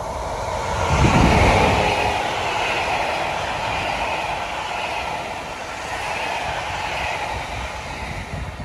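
SJ electric passenger train passing close by on the track, its wheels running on the rails. The sound is loudest about a second in as the train comes alongside, then the carriages roll past steadily and the sound fades near the end.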